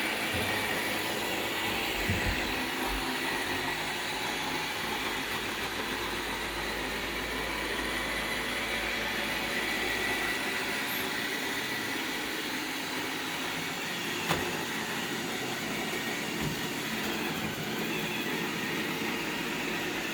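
iRobot Roomba 691 robot vacuum running on carpet, a steady whir of its motors and brushes, with a couple of light knocks.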